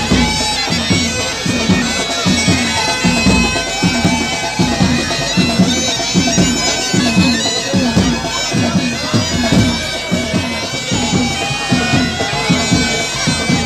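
Pipe band playing: bagpipes carry a tune over a steady drone, with a regular drum beat of about two strokes a second.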